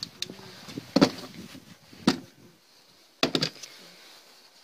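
Sharp clicks and knocks of hard plastic and metal from hands working at an Opel Astra G's air filter housing and intake hose. There is a loud knock about a second in, another about a second later, and a quick double knock near the end.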